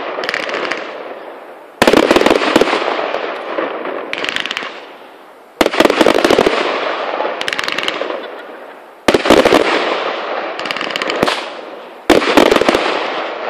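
Aerial firework shells bursting in a steady series: four loud bangs about three and a half seconds apart. Each is followed by a long fading rumble and, a couple of seconds later, a spell of fine crackling from the stars.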